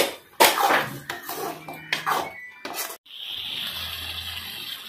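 Steel ladle knocking and scraping against an aluminium kadai while stirring a thick crab gravy, with several sharp clinks over the first three seconds. After a sudden break, a steady hiss follows.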